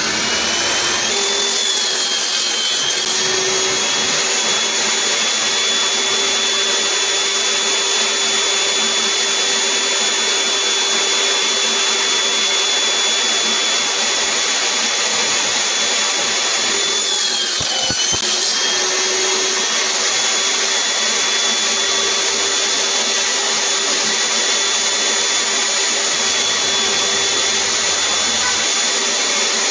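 Table saw running with a steady high whine, the pitch still rising in the first second as the motor comes up to speed. About 17 seconds in the whine drops in pitch for a second or so as the blade cuts through pine held in a jig, then recovers.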